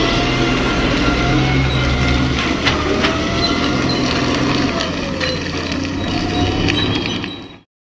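A heavy truck running: a steady engine drone with a whine that slides down and back up in pitch, and scattered knocks and rattles. It cuts off suddenly near the end.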